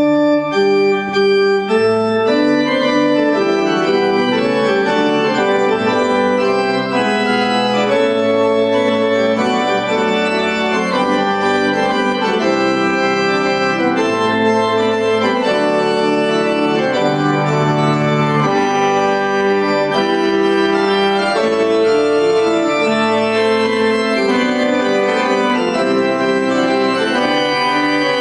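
New Jann pipe organ being played: a piece in several voices over low bass notes, the notes changing several times a second. It starts abruptly with a full chord.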